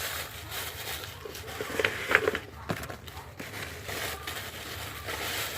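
Packaging being handled: irregular crinkling and rustling of wrapping material, with a few short crackles, as squishy toys are packed.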